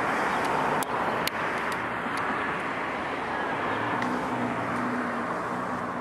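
Road traffic noise: a steady rush of passing vehicles, with a low engine hum joining about four seconds in. Two brief clicks sound about a second in.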